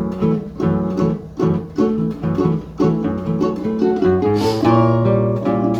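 Acoustic guitar strumming chords in a rhythmic instrumental intro, settling into longer held notes about four seconds in.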